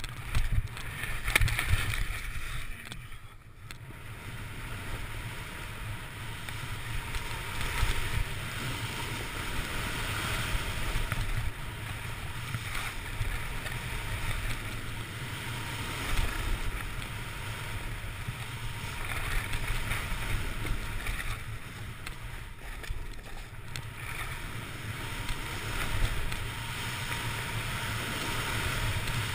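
Wind buffeting a helmet-mounted camera's microphone as a telemark skier descends, with the steady hiss of skis sliding and turning through snow, rising and falling through the run.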